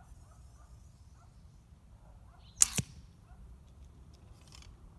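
An English longbow of about 50 lb draw being shot: a sharp crack of the string on release about halfway through, a second snap right after and a short low hum as the string settles. A faint rustle follows about two seconds later.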